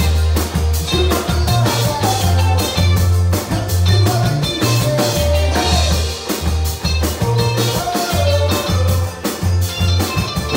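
Live rock band playing with electric guitars, electric bass and a drum kit, the bass notes strong and changing in rhythm.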